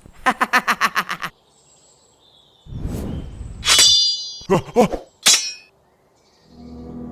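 A quick run of about eight sharp pulses, then a burst of noise and a bright, ringing metallic clang, with short cries and one more sharp hit after it; music comes in near the end.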